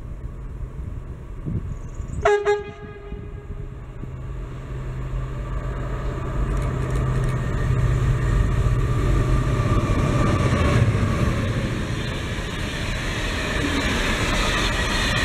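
A short horn blast about two seconds in from an approaching EMD Class 66 diesel locomotive. Its engine then grows louder as it draws level and passes, followed by the steady rolling and rattling of a train of hopper wagons over the rails.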